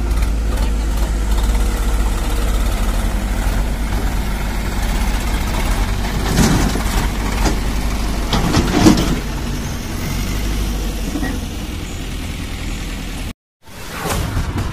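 Sonalika tractor's diesel engine running steadily at idle, with a few sharp knocks along the way. Near the end it cuts off abruptly and a whoosh and thud follow.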